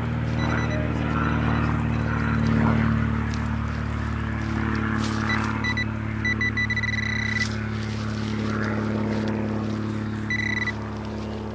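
Metal detector beeping over a target in a dug hole: a few short high beeps about five seconds in, a longer steady tone a second later, and another short beep near the end. Scrapes of a hand digger in the soil and a steady low hum sit underneath.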